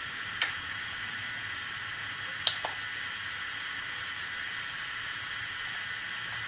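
Märklin HO model steam locomotive standing with a steady steam hiss, with a sharp click about half a second in and two more clicks in quick succession around two and a half seconds.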